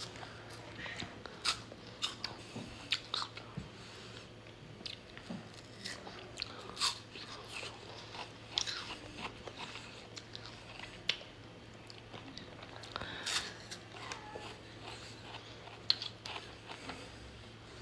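Ice being bitten and chewed close to the microphone: irregular crunches and sharp cracks, several in quick succession at times, with one especially loud crack near the end.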